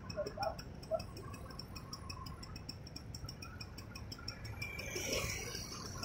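Street traffic: motorcycles and cars driving through an intersection with a low engine rumble, and one vehicle passing louder near the end. Under it runs a fast, even ticking of about five ticks a second.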